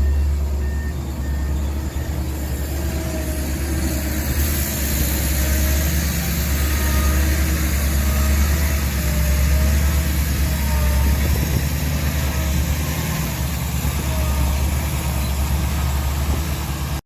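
Heavy diesel engine of earthmoving machinery running steadily, a deep, even drone.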